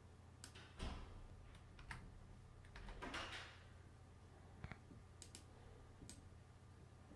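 Faint computer keyboard and mouse clicks, a dozen or so scattered irregularly, with a short swish about three seconds in, over a low steady hum.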